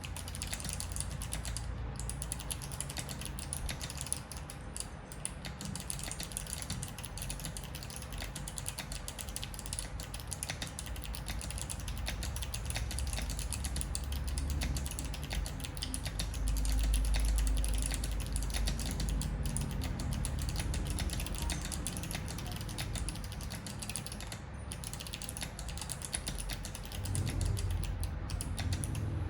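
Fast, continuous typing on a mechanical keyboard with unlubricated Kailh Box White clicky switches in an acrylic case: a dense stream of sharp key clicks, with brief pauses a couple of times. A low rumble sits underneath the clicking.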